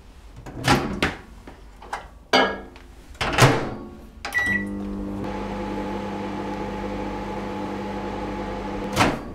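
Microwave oven: several knocks and clicks as the door is shut and the buttons are pressed, a short beep about four and a half seconds in, then the oven running with a steady hum as it heats. A sharp click near the end.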